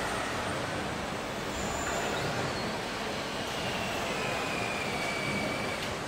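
Steady background noise of a car assembly hall, with a faint high whine that drifts slightly lower in the second half.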